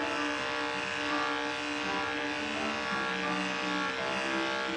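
Andis 5-speed corded dog clipper running steadily with a constant buzz, with music playing under it.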